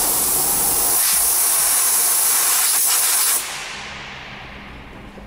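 Steady, loud hiss of compressed air from a hand-held air line under the car, cut off about three and a half seconds in and trailing away.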